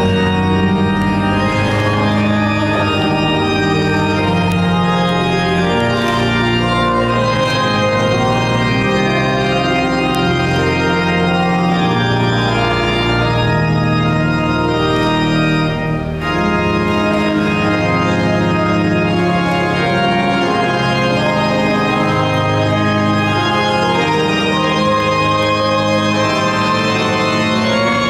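Cathedral pipe organ playing slow, sustained chords that change every second or two, with a brief dip about halfway through, in a long stone-church reverberation.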